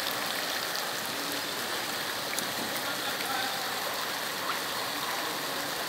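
Steady hiss and swish of floodwater, with faint scattered ticks.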